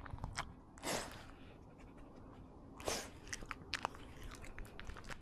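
Pomeranian eating its dry food, picked up close by a camera strapped to the dog: scattered crunches and clicks, with a few louder scrapes about a second in and near three seconds.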